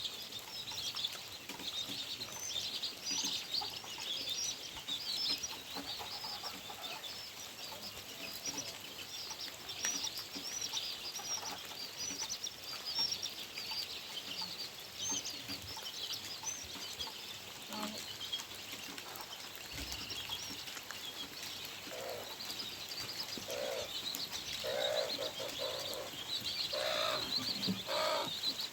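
Many small birds chirping in a steady, busy chatter of short high notes, joined near the end by chickens clucking.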